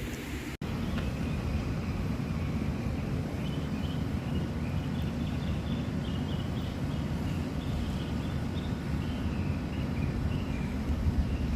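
Wind rumbling steadily on the microphone, with faint birds chirping in short repeated calls through most of it.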